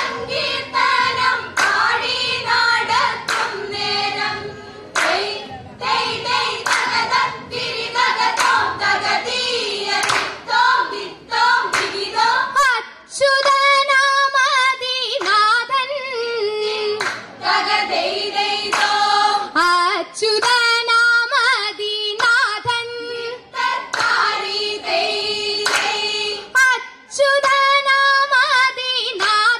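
A group of girls singing a Vanchippattu, the Kerala boat song, in the Aranmula style, with rhythmic hand claps keeping the beat throughout.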